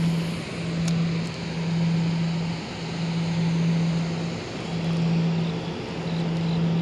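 Rushing, churning water below a dam with wind on the microphone, swelling and fading, over a steady low engine-like hum that drops out briefly every second or two.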